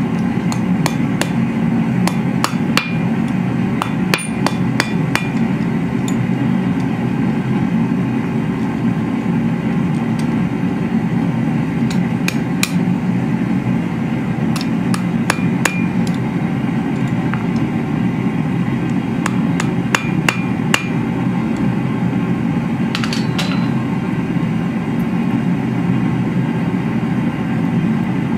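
Hand hammer striking a small steel bar on a steel anvil in irregular clusters of blows, each with a short metallic ring. A steady low roar runs underneath.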